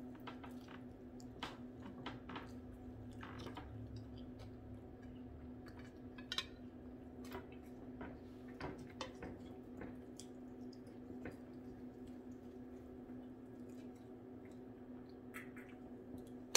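Fingers picking apart food over a plate: scattered soft, squishy clicks and ticks, one sharper click about six seconds in, over a steady low hum.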